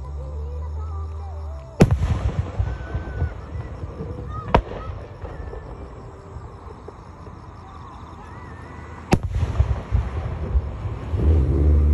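Aerial firework shells bursting: three sharp bangs, about two seconds in, about four and a half seconds in, and about nine seconds in. The first and last are followed by a rolling rumble of echo.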